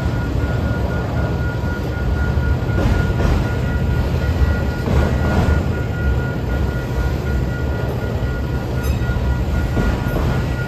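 BNSF autorack freight cars rolling past over a grade crossing, with a steady low rumble and the wheels clacking in pairs over the rail joints every few seconds. A thin steady high tone sits above it.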